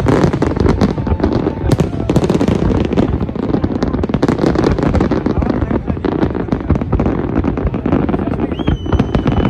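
Aerial fireworks display: a rapid, continuous barrage of overlapping bangs and crackles with no gaps. Near the end a steady high whistle comes in over it.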